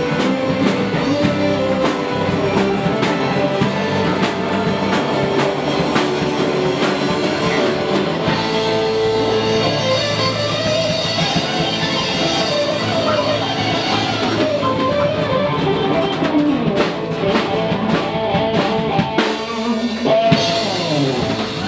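Live pop-rock band playing: drum kit, bass guitar, acoustic and electric guitars and keyboard. The low end drops out about nineteen seconds in, leaving drum hits and guitar.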